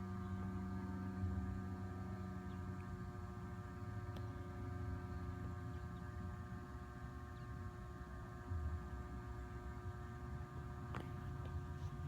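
A steady hum made of several held tones over a low rumble, with a few faint clicks, at about four seconds in and again near the end.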